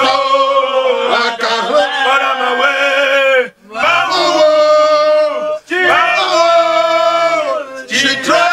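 A man singing a chanted prayer line in three long phrases, holding each note steadily, with brief breaths between them.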